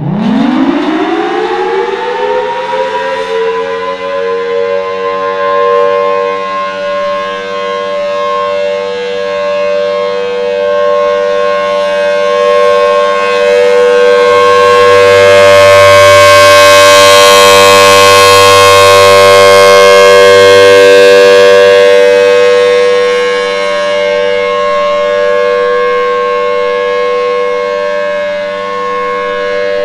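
Federal Signal Thunderbolt 1000T outdoor warning siren winding up from silence, its pitch rising quickly over the first few seconds. It then holds one steady tone for the Alert signal, swelling to its loudest about halfway through and easing back as the rotating horn sweeps past.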